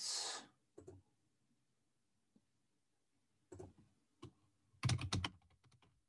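Typing on a computer keyboard: a few scattered clicks, then a handful of heavier key strikes about five seconds in, followed by a quick run of light key taps.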